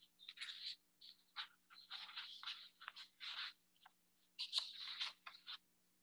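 A string of short, irregular rustling and scratching noises over a faint steady hum.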